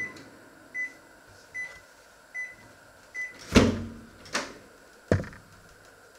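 A microwave oven finishing its cycle: the running hum stops and it beeps five times, about 0.8 s apart. Then three clunks, the first and loudest about three and a half seconds in.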